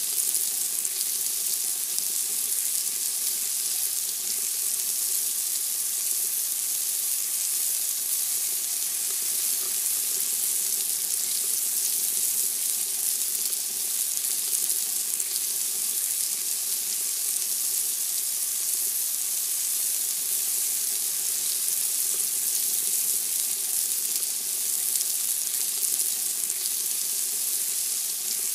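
Pork chops sizzling steadily on a charcoal grill, an even high hiss that holds without a break.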